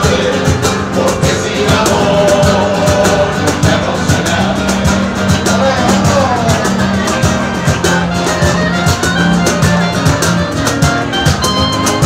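Live band music: acoustic guitars strummed with hand clapping keeping the beat, and a clarinet and a singing voice carrying the melody.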